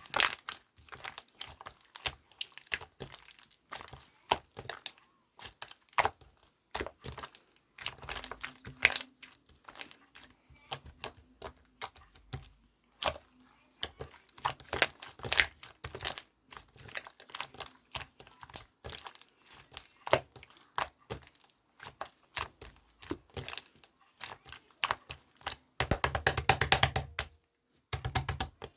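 Rapid, irregular close-up clicks and crinkling, like something being handled or tapped, with a denser, louder flurry of clicks near the end.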